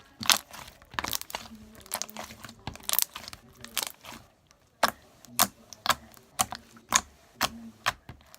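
Slime being squeezed and stretched by hand, giving off sharp pops and crackling clicks: irregular at first, then about two a second.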